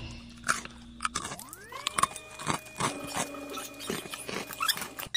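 Eating by hand: short clicks and scrapes of fingers picking grilled catfish and rice off ceramic plates, with chewing. Under them, a held background music tone slides up in pitch a little over a second in and then stays level.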